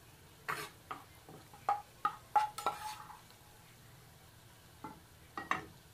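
Metal slotted spoon clinking and scraping against a frying pan and dish as fried onions are lifted out of the oil: a quick run of sharp, briefly ringing clinks in the first three seconds, then a few more near the end.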